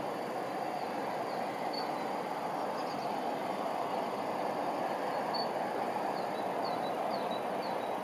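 Steady hum of distant city traffic, with a few faint, short, high bird chirps scattered through it, several in quick succession near the end.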